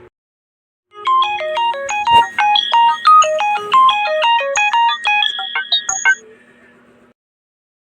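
A smartphone ringtone: a quick melody of short, bright synthesized notes over a held low tone, starting about a second in and ending about five seconds later with a brief fade.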